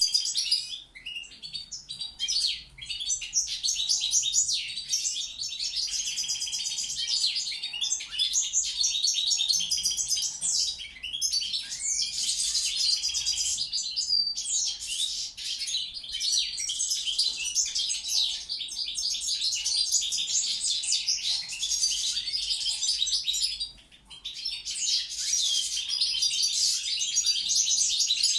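Balkan goldfinch (Carduelis carduelis balcanica) singing a long, fast twittering song, broken by a short pause about three-quarters of the way through.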